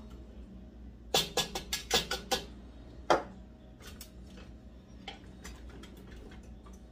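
A kitchen utensil knocking against a plastic food processor bowl as chopped garlic is scraped out into a pot. There is a quick run of about six taps about a second in, one louder knock about a second later, and a few faint taps after that.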